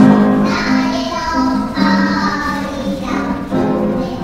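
A choir of young children singing a Korean song about Mount Paektu to piano accompaniment, played back over a lecture hall's loudspeakers.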